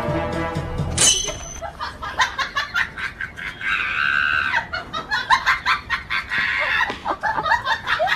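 Chickens squawking and clucking in rapid short calls during a scuffle with a dog, with one longer held cry near four seconds in. Background music cuts off about a second in.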